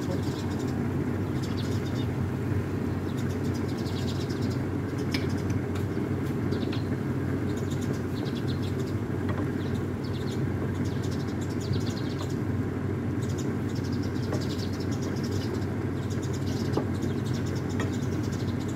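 Bitter gourd being stir-fried in a stainless steel wok, stirred with a wooden spatula: on and off bouts of light scraping and crackle. Under it runs a steady low hum.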